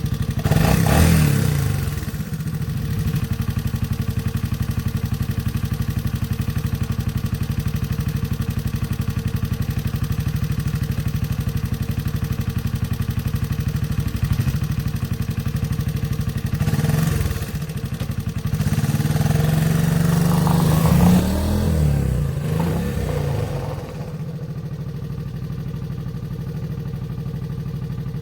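1983 Honda ATC 185S three-wheeler's single-cylinder four-stroke engine running, revved up briefly near the start and again in two stretches past the middle, with one rising rev, before settling to a steady idle near the end.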